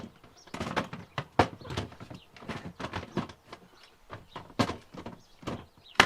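A string of irregular clicks and knocks, with a single sharp, loud knock near the end. There is no engine running.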